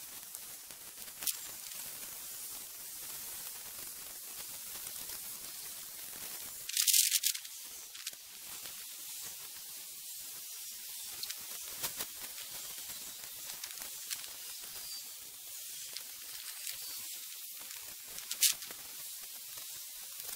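Steady faint hiss with a few sharp clicks and a short, louder rustling burst about seven seconds in.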